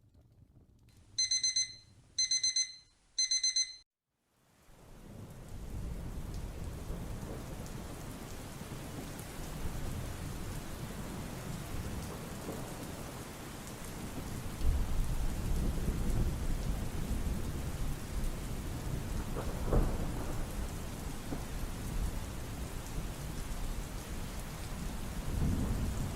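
A timer alarm beeps in three short bursts, marking the end of the 25-minute study session. After a brief silence, a thunderstorm ambience fades in: steady rain with low rumbles of thunder that swell about fifteen seconds in and again near the end.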